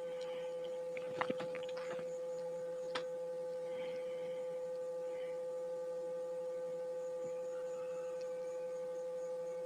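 Steady electrical hum, with a few light metallic clicks of a wrench on the tappet adjuster of a Bajaj CT100 engine: a quick pair about a second in and one more at about three seconds.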